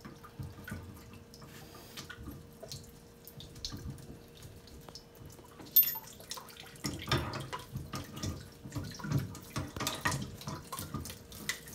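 Water running from a hot-water supply line's quarter-turn stop valve into a bucket while the line is still under pressure, with irregular clicks and knocks of the metal fittings being handled. A sharp click comes about halfway through, and the knocking is busiest in the last few seconds.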